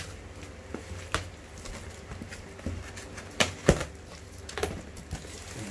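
Cardboard shipping box being opened by hand: scattered taps, knocks and scrapes of the cardboard as the flaps are pulled open, the loudest two knocks about three and a half seconds in.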